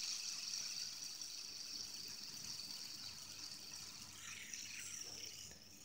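Fidget spinner spinning on its bearing held between the fingers, a faint high whir that slowly fades as it winds down.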